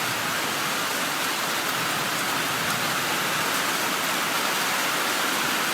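Heavy rain pouring down in a thunderstorm, a steady even hiss with no breaks.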